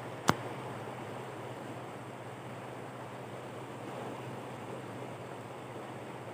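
Shallow river flowing, a steady rushing of water over a stony bed, with one sharp click about a third of a second in.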